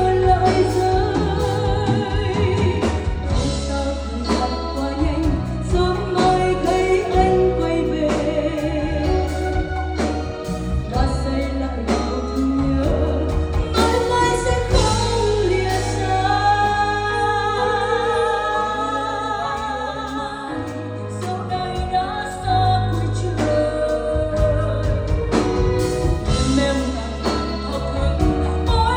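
A pop song with singing over a steady beat and bass.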